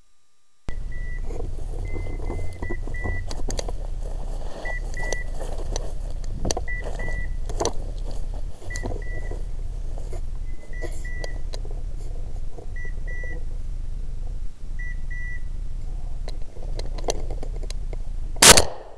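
A hunting dog's beeper collar giving short high double beeps about every two seconds while the setter runs through undergrowth, with the rustle and snap of brush and twigs throughout. A single loud bang near the end.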